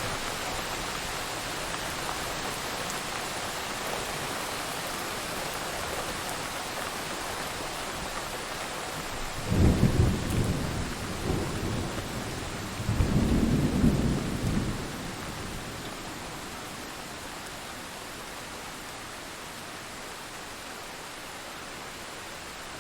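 Steady rain with two rolls of thunder: a low rumble about ten seconds in and a second, longer one a few seconds after it. The rain eases slightly near the end.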